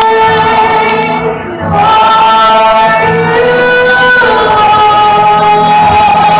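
Worship singing: a woman sings long held notes over instrumental backing, one phrase fading about a second and a half in and the next starting shortly after.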